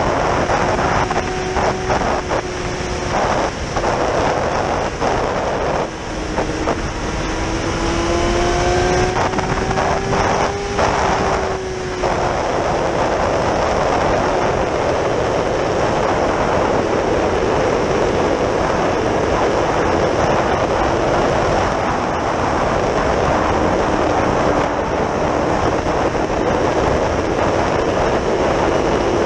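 Yamaha R6 sportbike's inline-four engine heard from onboard under strong wind rush. The engine note climbs steadily for about five seconds as the bike accelerates, drops away near the middle, and then wind noise dominates at a steady cruise.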